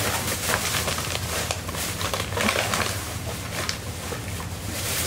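Thin plastic grocery bags rustling and crinkling as groceries are pulled out of them, over a low steady hum.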